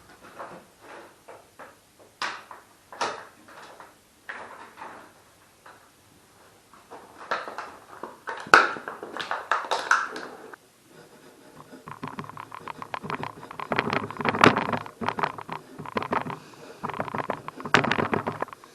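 Irregular knocks and clicks of hand work on parts, then about twelve seconds in a denser, rapid rattling buzz that stops just before the end.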